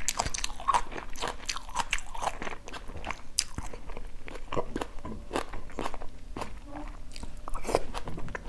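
Person chewing a mouthful of instant noodles with beef and water spinach: a run of irregular quick wet mouth clicks and smacks.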